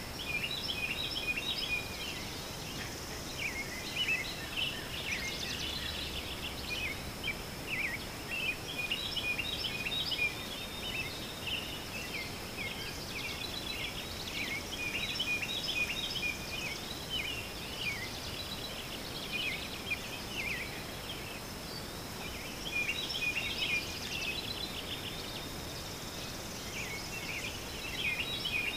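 Many birds chirping in quick, overlapping short calls that come in busier and quieter stretches, over a steady thin high tone.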